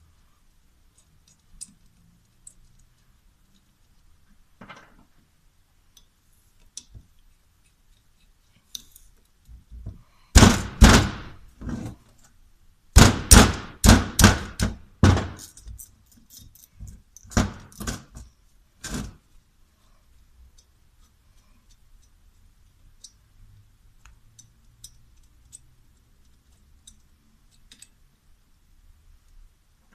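Light tool clicks, then about ten seconds in a run of roughly a dozen sharp metal knocks over some nine seconds, each ringing briefly: hammer blows on the rusted housing of a Toyota Hilux D4D turbocharger to free it. Light clicking returns after the knocks.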